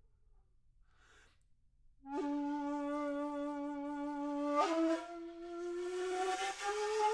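Solo flute music. After a faint breath of air about a second in, a long low note is held from about two seconds in, steps up about two-thirds of the way through, then slides slowly upward toward the end.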